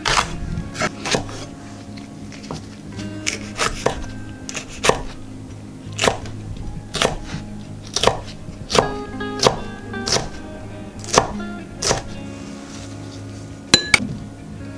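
Kitchen knife chopping on a cutting board in separate, irregular strikes, roughly one a second, over background music.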